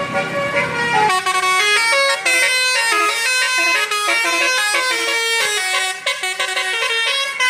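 Bus 'telolet' multi-tone horn playing a quick melody of stepping notes, starting about a second in. A low rumble in the first second stops as the horn begins.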